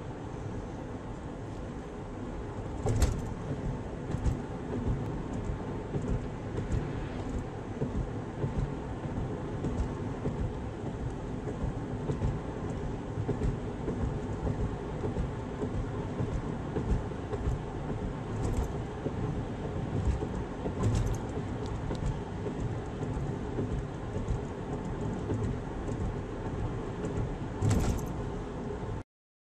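Road and tyre noise inside a car driving at speed, a steady low rumble, with a few sharp knocks and thumps from bumps along the way. The sound cuts off abruptly just before the end.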